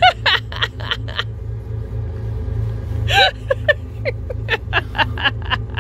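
Boat engine running with a steady low rumble. Short, quick bursts of a voice come over it, a rapid run near the start and another from about three to five seconds in.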